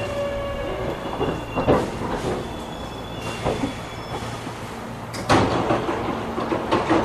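Hankyu 8300 series electric train heard from inside the car as it runs through a subway tunnel: a steady rumble of wheels on rail over a low motor hum. There is a knock about two seconds in and a louder clunk about five seconds in.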